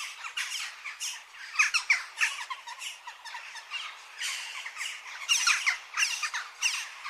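A dense chorus of many small birds chirping, with short, quick, overlapping calls, many of them sliding downward in pitch, and no pause between them.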